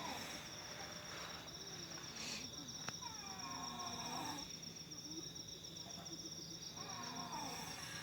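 Steady chirring of crickets, with a sleeping person snoring under it, one wavering snore every three to four seconds.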